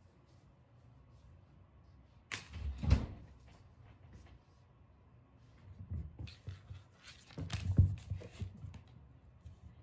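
A kitten's paws thudding and skittering across a wooden floor as it dashes at full speed. There are two runs of quick footfalls, a short one a little over two seconds in and a longer one from about six to eight seconds.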